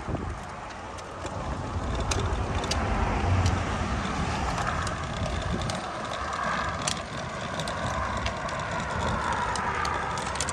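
Electric scooter towing a loaded folding wagon over a paved path: the wagon's wheels rolling and rattling, with scattered clicks over a low rumble. A faint wavering whine comes in about halfway through.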